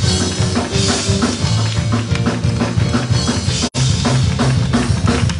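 A church band playing an up-tempo praise number, with a driving drum kit and a bass line. The sound drops out for an instant about two-thirds of the way through.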